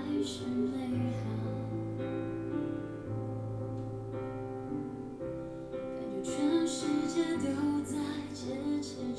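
Music played back through HomePod speakers: a slow song with piano and a female voice singing sustained notes.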